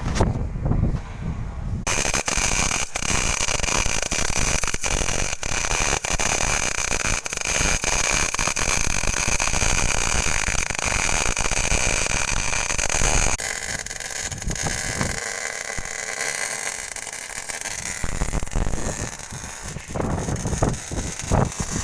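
CO2-shielded MIG welding arc crackling and sizzling steadily, starting about two seconds in; after about thirteen seconds it turns quieter and more uneven.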